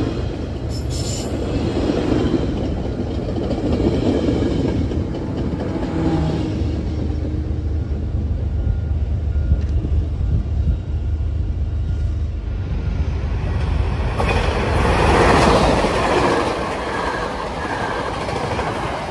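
Bilevel passenger rail coaches rolling past on steel rails, a steady low rumble of wheels on track. About 14 seconds in a second passenger train passes close and louder, with a thin wheel squeal.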